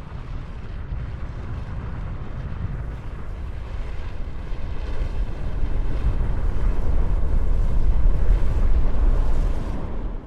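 Deep rumble of a volcanic eruption with a hissing edge, swelling louder in the second half and cutting off abruptly at the end.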